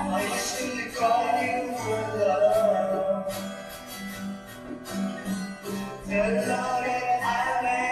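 Rock song playing, with guitar and a wavering melody line that swells twice, about a second in and again about six seconds in.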